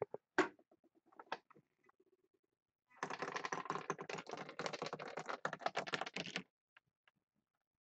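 A puck clattering down the pegs of a Plinko pegboard, starting about three seconds in: a rapid, uneven run of clicks that lasts about three and a half seconds, then stops.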